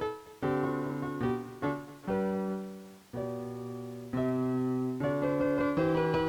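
Background piano music: single notes and chords struck and left to ring, a new one every second or so.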